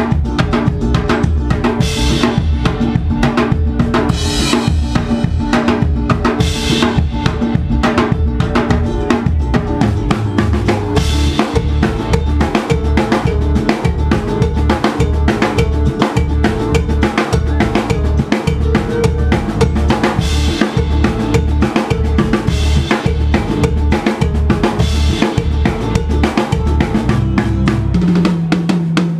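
Live band playing an instrumental passage: a drum kit keeping a steady beat with kick and snare, under electric bass and keyboards. Loud throughout.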